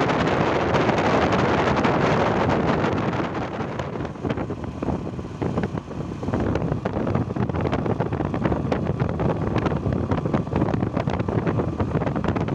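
Wind rushing and buffeting over the microphone of a moving vehicle, with road and vehicle noise underneath; it eases slightly about four seconds in.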